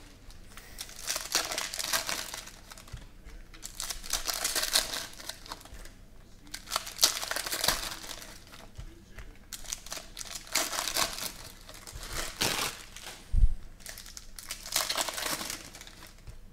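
Foil wrappers of Panini Prizm football card packs crinkling and tearing as they are ripped open by hand, in repeated bursts. A single dull thump comes about two-thirds of the way through.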